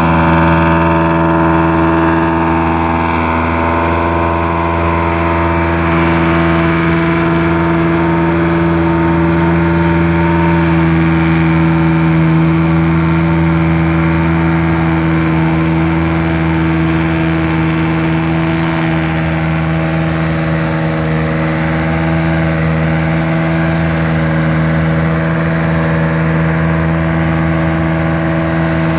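Laverda 3700 combine harvester running at a steady speed: a constant engine drone with a steady pitched hum that holds throughout.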